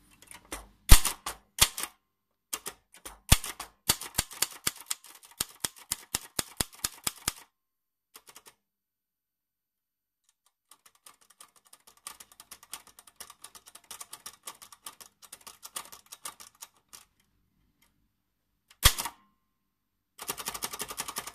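Typewriter typing a short line: a run of sharp, irregular key clacks for about seven seconds, then after a pause a stretch of fainter, quicker ticking, one loud clack, and a dense rattle lasting about a second near the end.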